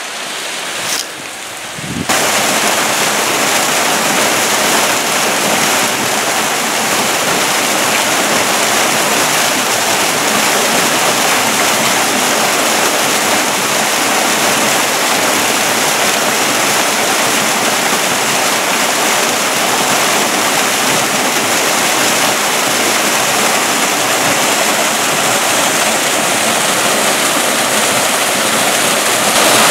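Steady rushing of a waterfall close by, which jumps suddenly louder about two seconds in.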